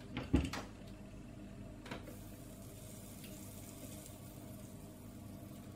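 Soldering iron melting solder onto the pins of a DB9 connector on a small circuit board: a thump about a third of a second in, a click about two seconds in, then a faint hiss of flux sizzling, over a low steady hum.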